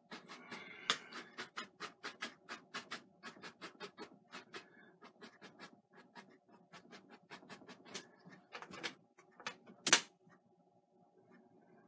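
Bristle paintbrush tapping and dabbing oil paint onto a stretched canvas in quick, even taps, about five a second. Near the end comes a single much louder knock.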